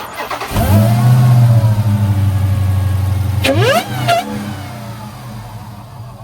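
Dodge Hellcat's supercharged 6.2 L Hemi V8, breathing through a newly fitted JLT Performance intake, is cranked and catches on its first start, flaring to a loud high idle. About three and a half seconds in there is a short rev with a rising whine, and then it settles back toward idle.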